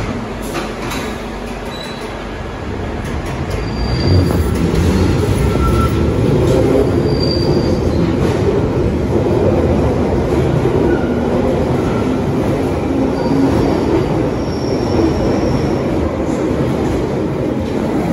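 London Underground Bakerloo line 1972 Stock tube train pulling out of the platform and accelerating past: a steady rumble of wheels on rail that grows louder about four seconds in, with short, high wheel squeals.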